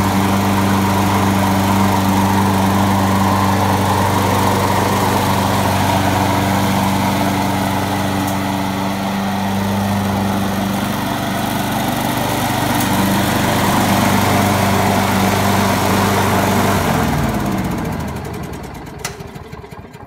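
190cc Briggs & Stratton single-cylinder mower engine running steadily at full speed just after an electric start, then shutting off about 17 seconds in and winding down to a stop.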